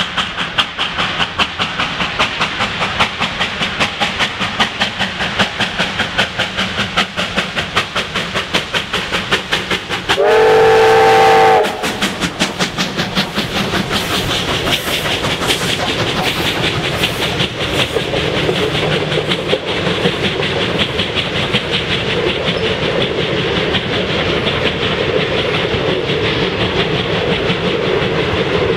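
Two R class Hudson steam locomotives double-heading a passenger train past at speed: rapid exhaust chuffing, with a loud multi-tone steam whistle blast of about a second and a half about ten seconds in. The carriages then roll by with wheels clattering over the rail joints.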